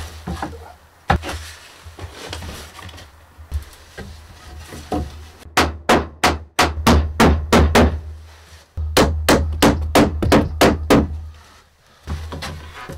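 Hammer driving nails into wooden boards: two runs of quick strikes, about ten in each, a second apart, with a few lighter knocks before them.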